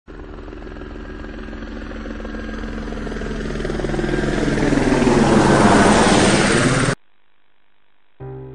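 Electric motor and propeller of a Multiplex EasyStar 2 RC model plane running, growing steadily louder for about six seconds, then cut off abruptly.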